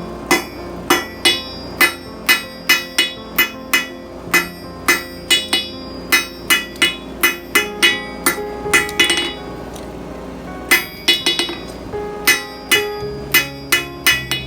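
Hammer blows on hot mild steel bar stock at the anvil, about two to three ringing strikes a second, with a short pause about two-thirds of the way through, over background music.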